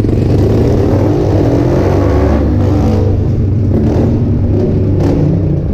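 125cc pit bike's single-cylinder four-stroke engine running, its revs rising briefly around the middle.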